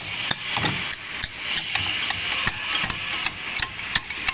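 Sharp metallic clicks and clinks, uneven and several a second, from hand wrenches working the bolts of a feed pellet mill's roller and ring die assembly during disassembly.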